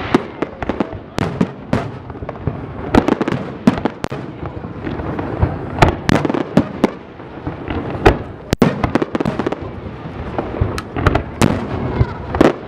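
Fireworks display: a rapid, irregular barrage of bangs from shells bursting overhead, over continuous crackling, with sharp reports every fraction of a second to a second.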